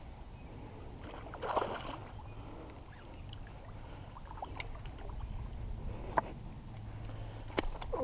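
Hooked smallmouth bass splashing in shallow water as it is played in to the bank, with one louder splash about one and a half seconds in and a few sharp clicks later, over a low steady rumble.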